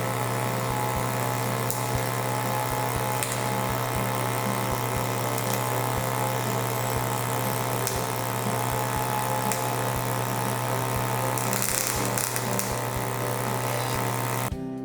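MIG welding arc running continuously, a steady crackling buzz over a strong low hum, which cuts off abruptly just before the end.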